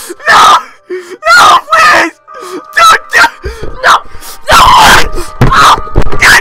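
Loud wailing and sobbing in a human voice, in broken bursts. A backing track with steady held notes comes in about three seconds in.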